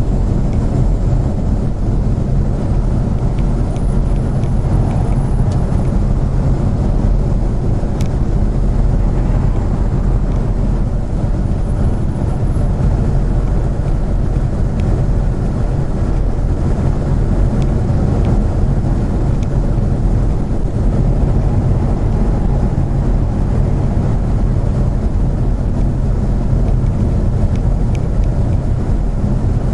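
Steady road and engine noise of a car driving at speed, heard from inside the cabin: a constant low rumble.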